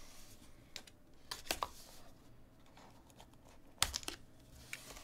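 Hands handling a cardboard trading-card box and slitting its seal with a small plastic box cutter: scattered light clicks and scrapes, with a short cluster of sharper clicks a little before the end.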